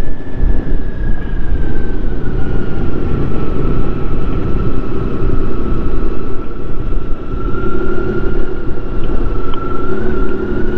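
Motorcycle engine running, under a dense, loud low rumble, with a steady whine that dips a little in pitch and comes back up near the end.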